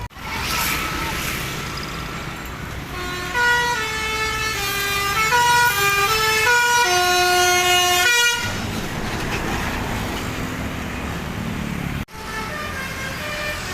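Basuri 'telolet' multi-tone bus horn playing a quick stepped melody of horn notes for about five seconds, loud over street noise. A cut near the end leads into another burst of horn notes.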